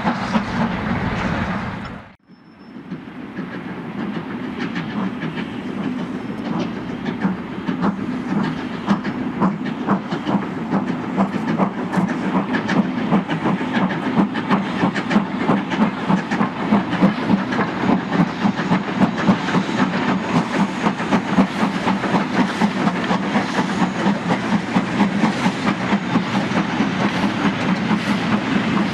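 Steam-hauled freight trains passing close by: a 'Super D' 0-8-0 and an 8F 2-8-0 with long rakes of wagons, their wheels clicking over rail joints in a fast, steady rhythm over a continuous rumble. The sound drops out briefly about two seconds in, then comes back louder.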